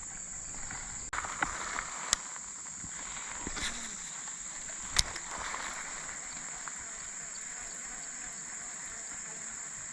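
Steady high-pitched drone of insects, with a few sharp clicks of handling, the loudest about five seconds in.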